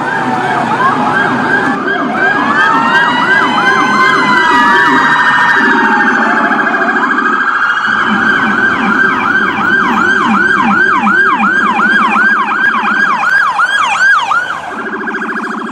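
Electronic emergency-vehicle sirens sounding together: slow rising-and-falling wails in the first few seconds, then a fast yelp sweeping up and down about three times a second, over a lower rapid warbling tone.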